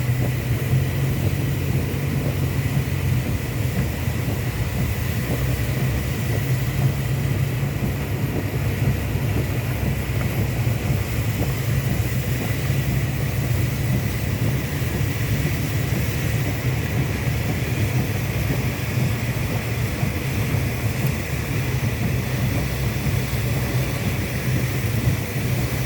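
Steady low rumble of a car driving in traffic, with a faint steady high whine.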